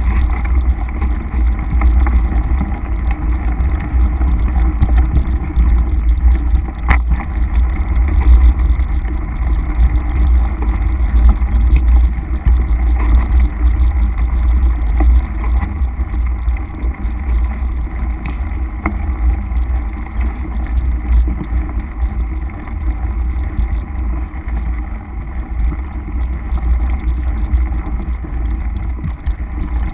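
Mountain bike riding a dirt singletrack, picked up by an action camera as a loud, steady low rumble of wind and vibration on the microphone, with occasional rattling clicks from the bike over rough ground.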